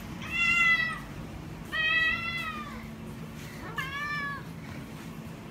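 A domestic cat meowing three times in about four seconds, each call under a second long and arching up and down in pitch.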